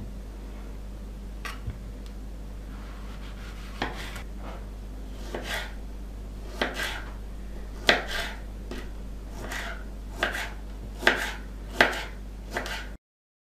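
Kitchen knife cutting a guava on a wooden cutting board: irregular short knocks as the blade goes through the fruit and strikes the board, coming closer together in the second half as she dices it into cubes.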